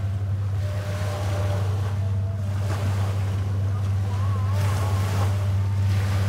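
Seafront ambience: a steady low motor drone over the wash of small waves and wind.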